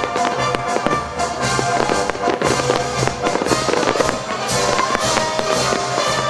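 Festive fireworks salute: many shells bursting and crackling in rapid, overlapping bangs, with music playing alongside.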